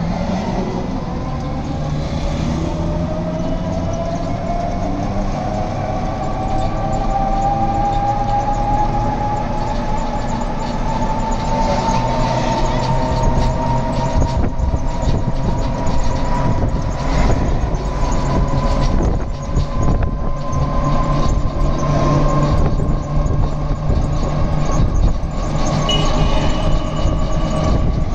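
Bus running along a road, its engine and drivetrain whine rising slowly in pitch as it gathers speed and then holding steady, over rumbling road noise and rattles.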